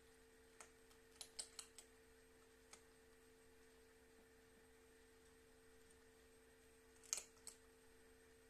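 Near silence over a faint steady hum, broken by scattered light clicks and taps: a quick cluster of about five around a second in, one more a little later, and a louder pair near the end.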